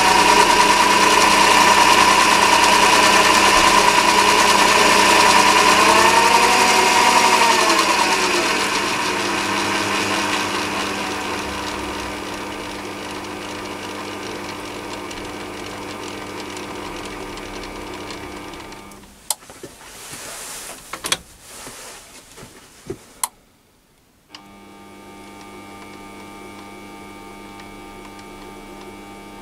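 Chinese mini lathe motor running with the chuck spinning, a steady whine that bends in pitch and fades as the speed control potentiometer is turned down. About 19 seconds in it stops amid a few clicks, then after a moment's silence runs again steadily at a lower speed.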